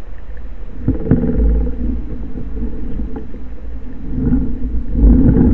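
Underwater sound picked up by a camera on a speargun: a low rumble of moving water, joined about a second in by a steady droning hum, with a few sharp clicks at about that moment.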